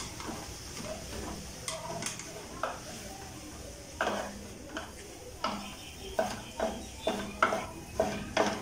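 A spatula stirring and scraping boiled jackfruit pieces through a thick, dry spice masala in a metal pot, with no water added. It is quiet at first, then from about four seconds in comes a run of short scrapes, about two a second.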